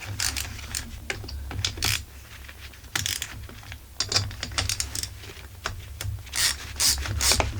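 Ratchet wrench clicking in short, irregular runs with pauses as the cylinder screws are turned.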